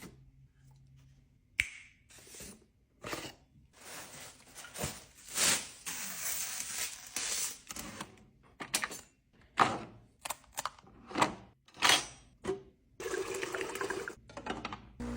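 Packaging being unpacked from a new espresso machine: a sharp click, then a run of irregular swishes and rustles as plastic and packing material are pulled and slid.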